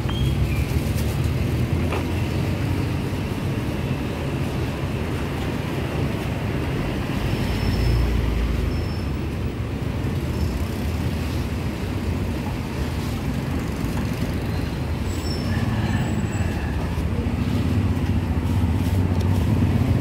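Steady street traffic noise with a low rumble of passing motor vehicles.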